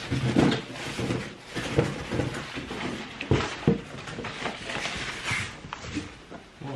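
Bubble wrap and packing paper rustling and crinkling as they are pulled out of a cardboard box, with a few irregular handling knocks.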